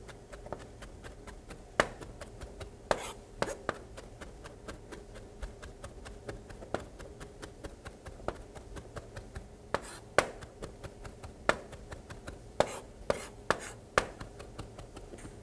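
Chef's knife chopping fresh parsley on a plastic cutting board: a quick, uneven run of light knocks, several a second, with a few sharper, louder strikes among them.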